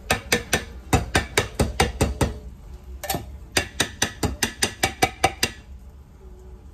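Manual can opener being cranked around a metal can, a rapid even clicking of about five clicks a second. It comes in two runs with a short pause between, the second about a second after the first stops.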